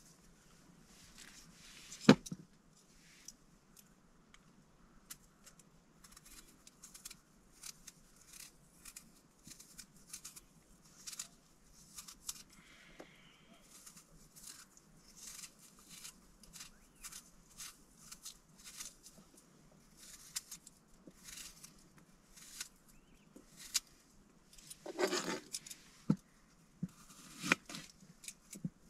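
Kitchen knife paring and slicing a potato over a plastic cutting board: a run of short, crisp cutting and scraping strokes, one or two a second, with a sharp knock of the blade on the board about two seconds in and a longer, louder cut near the end.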